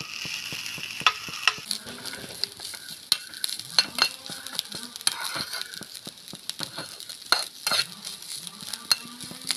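Grated coconut being dry-roasted in a nonstick pan and stirred steadily with a spatula: repeated scraping and sharp taps of the spatula against the pan, over a soft hiss that fades after the first second or so.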